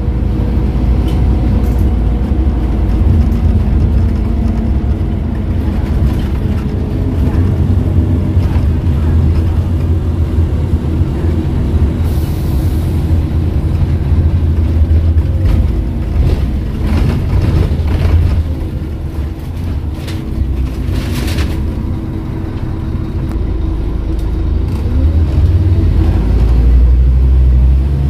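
Scania N230UD double-decker's diesel engine and ZF automatic gearbox heard from inside the bus as it drives: a steady low engine drone, with a short hiss about twelve seconds in. The engine note eases off in the second half, then rises again and is loudest near the end as the bus accelerates.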